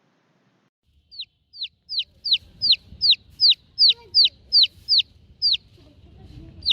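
A baby chick peeping: a quick run of short, high cheeps that each fall in pitch, about three a second, starting about a second in.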